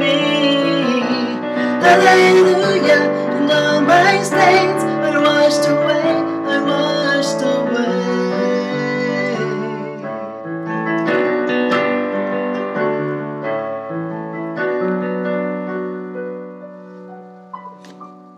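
Piano playing the closing bars of a slow hymn cover, thinning to held chords and fading out near the end.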